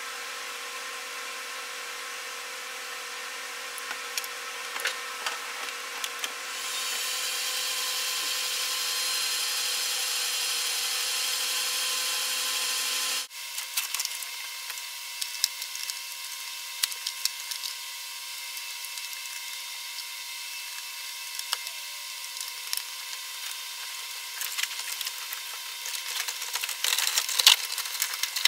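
Small clicks and rattles of wiring, connectors and plastic dash panels being handled under a truck dash, over a steady hiss. The hiss grows louder for several seconds in the first half and then cuts off abruptly, and a cluster of sharper clicks comes near the end.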